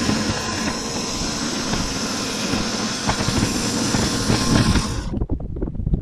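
Norwood Lumberlite ML26 band sawmill cutting a maple log, its engine and bandsaw blade running steadily under load. About a second before the end the high hiss of the cut drops away suddenly, leaving an uneven low engine rumble.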